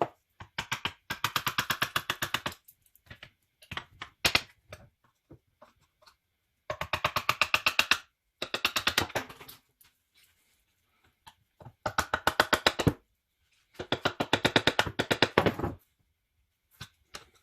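Impact driver hammering in six separate bursts of one to two seconds each, about a dozen rapid blows a second, against the fasteners of a Peerless transaxle's case.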